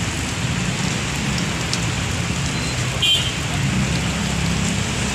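Heavy rain pouring steadily, over the low running of vehicle engines as vehicles move slowly through the flooded street. A brief, sharper sound stands out about three seconds in.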